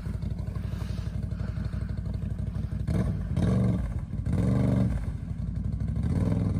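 ATV engine running with the quad deep in muddy water, revved in three short bursts about three, four and a half, and six seconds in.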